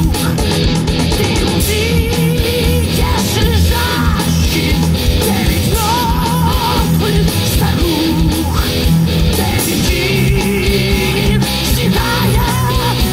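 Heavy metal music: distorted electric guitars and drums, with a wavering, vibrato-laden lead melody over them.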